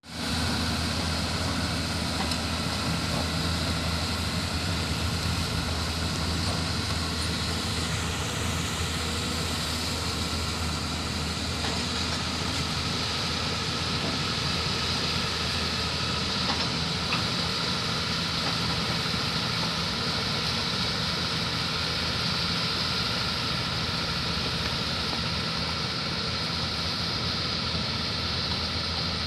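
Diesel engine of heavy earthmoving machinery running steadily at an even speed, a continuous low hum that hardly changes.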